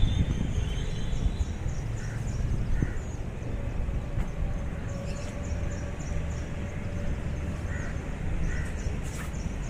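Birds chirping in quick repeated notes, with a few lower calls, over a steady low rumble.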